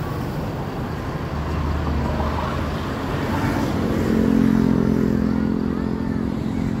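Roadside traffic: a motor vehicle's engine running as it passes, its engine note growing louder about four seconds in.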